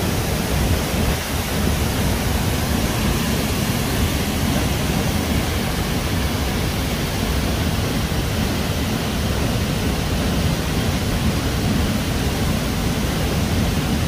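Ouzoud waterfall close by: falling water making a steady, even rushing noise that does not let up.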